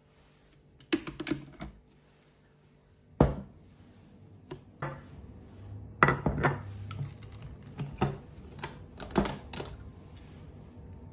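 Knocks and clinks of a blender jar and a plate being handled on a countertop: the jar lifted off its motor base, a plate set down about six seconds in, and the jar's screw-on blade base being turned loose. About five sharp knocks, with lighter clatter between them.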